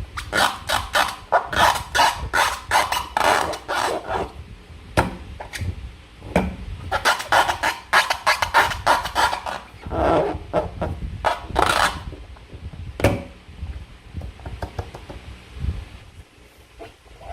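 Slime being squeezed and worked by hand, making rapid clusters of wet squelching clicks and crackles. These thin out to a few scattered clicks in the last few seconds.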